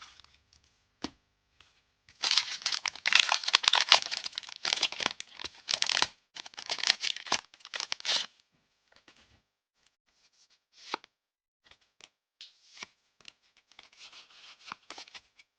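Foil wrapper of a Pokémon trading card booster pack being torn open and crinkled. The crackling starts about two seconds in and lasts about six seconds, followed by a few light clicks and soft rustling of handling.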